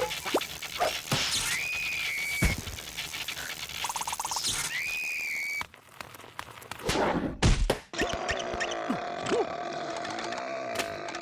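Cartoon sound effects and squeaky nonverbal character noises. Two whistle-like tones each rise and then hold, with a quick run of pips between them. After a short drop-out and a few knocks comes a longer held tone.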